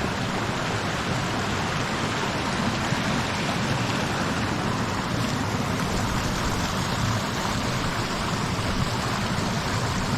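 A small mountain stream running, a steady rushing of water.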